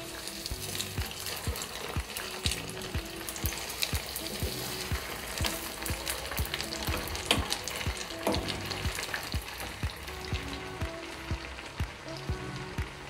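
Papas rellenas, breaded mashed-potato croquettes, deep-frying in a small saucepan of hot oil: steady sizzling with many sharp crackling pops.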